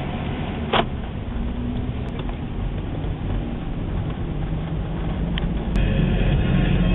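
Road and engine noise heard inside a moving car's cabin, a steady low rumble, with a short squeak about a second in. Near the end music comes in over it.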